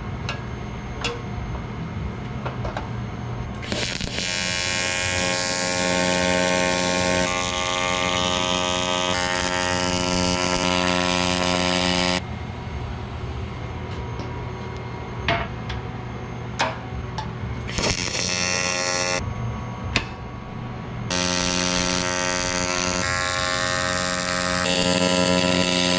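AC TIG welding arc buzzing steadily while aluminium is welded. The buzz starts about four seconds in and stops at about twelve seconds. A short burst and a few clicks follow, and the buzz starts again at about twenty-one seconds.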